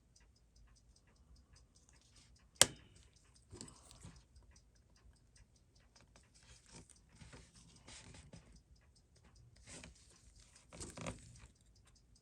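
Small metal clicks and scrapes from tools working the cap off a watch's mainspring barrel, with one sharp click about two and a half seconds in. A faint rapid ticking runs underneath.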